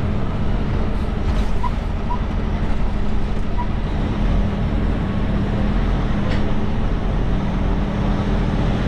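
Semi truck's diesel engine running steadily at low speed, with a few faint clicks.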